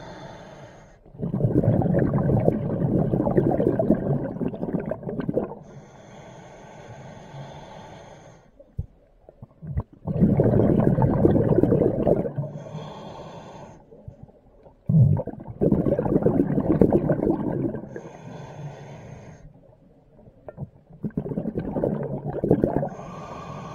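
Scuba diver breathing through a regulator underwater: four long rumbling bursts of exhaled bubbles, each followed by a quieter inhale with a thin high-pitched hiss from the regulator.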